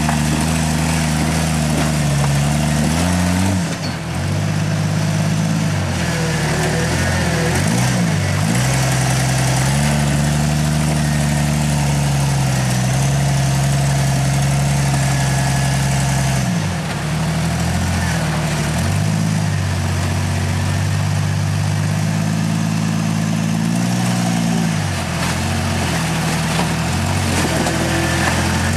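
Rock-crawling 4x4's engine running at low revs, its pitch rising and falling as the throttle is worked, with short dips a few times.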